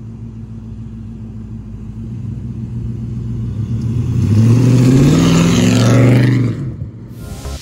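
A 5.3-litre LM7 V8 (LS swap) in an off-road camper truck running as it drives up and passes close by. It grows steadily louder as it approaches, is loudest with tyre noise as it goes by, then cuts off abruptly.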